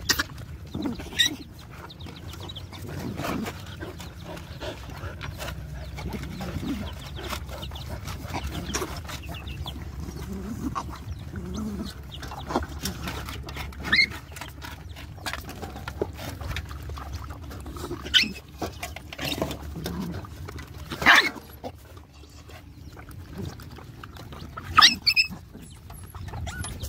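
A group of puppies eating together from one metal bowl: chewing and lapping, with low growling among them and a few short, sharp sounds, the loudest about two-thirds of the way through and near the end.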